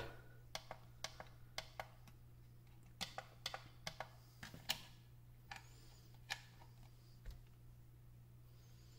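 Buttons on a LiitoKala 18650 battery charger being pressed to set the cells charging: a string of short sharp clicks at an irregular pace, about fifteen in all, over a faint steady low hum.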